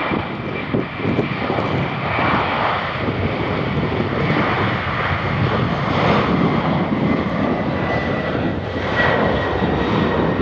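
Boeing 767 freighter's twin jet engines at takeoff power during the takeoff roll: a steady, heavy rumble with a thin high whine.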